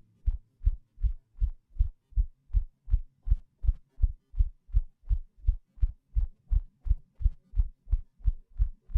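Sonification of two orbiting black holes' gravitational waves: a steady run of low, drum-like thumps, a little under three a second, each orbit heard as one beat.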